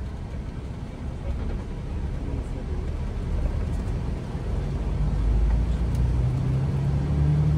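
Engine and road noise inside a moving road vehicle: a low rumble that grows louder, with a steady engine hum coming up near the end.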